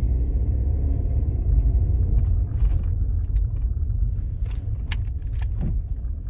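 Steady low rumble of a car heard from inside the cabin, with a few faint scattered clicks.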